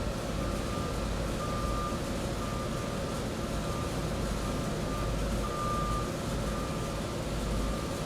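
Vehicle reversing alarm beeping about once a second over a steady low engine rumble.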